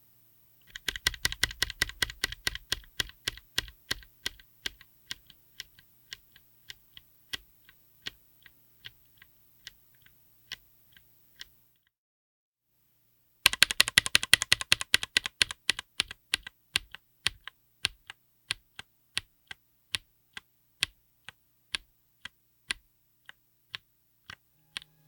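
Mechanical keyboard with Chosfox Poison Gas tactile switches on an FR4 plate in an aluminium case, typed on in two runs. Each run starts as quick, dense typing and slows to single keystrokes spaced about half a second to a second apart. There is a pause of about two seconds near the middle.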